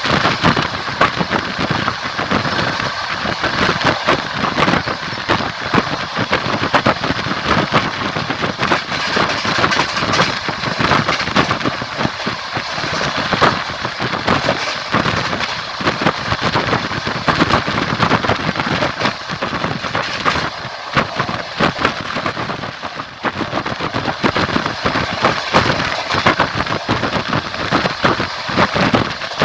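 Train running along the line: a steady rumble with dense rattling and clacking of wheels over the rails.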